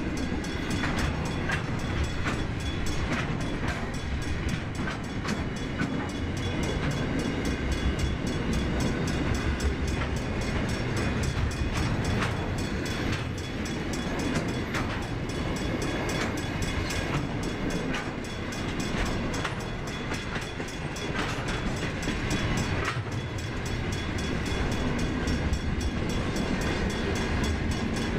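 Container wagons of a long freight train rolling past: a steady rumble of wheels on rail, with frequent sharp clacks as the wheels cross rail joints.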